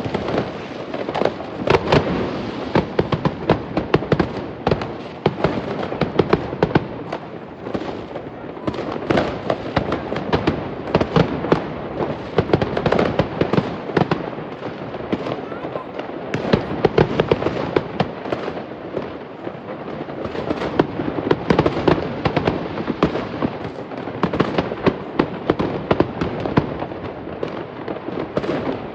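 Fireworks going off nonstop: many overlapping bangs and crackles of exploding shells and firecrackers, with no let-up.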